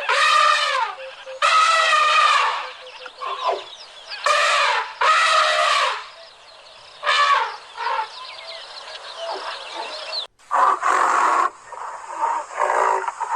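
A series of loud animal calls, each about half a second to a second long and rich in overtones, repeated with short pauses. About ten seconds in, the calls break off and a different run of calls follows.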